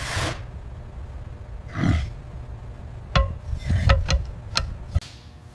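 Assembly-line work noises: a short whoosh, a brief rumbling swell, then a quick run of sharp metallic knocks and clanks with low thuds.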